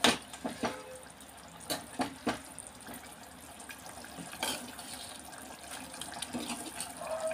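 Metal ladle stirring thick prawn curry in a clay pot: a steady wet squelching and stirring, with a few sharp knocks of the ladle against the pot.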